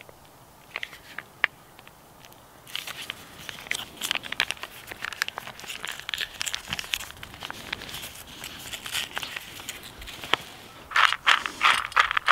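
Small plastic ketchup sachet crinkling and crackling as it is squeezed out, a dense run of little clicks. About eleven seconds in, louder rapid scraping and rattling of a fork stirring dry dog kibble in a metal bowl.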